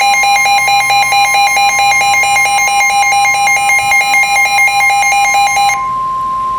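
A weather alert radio going off for a severe thunderstorm warning. A rapid, shrill on-off alarm beeping sounds over the steady, piercing 1050 Hz NOAA Weather Radio warning alarm tone. The beeping stops near the end, leaving the single steady tone.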